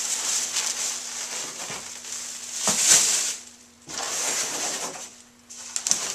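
Plastic wrapping and cardboard packing rustling and scraping as chair parts are pulled out of a cardboard box, loudest about three seconds in, with a couple of brief lulls and a few sharp clicks near the end.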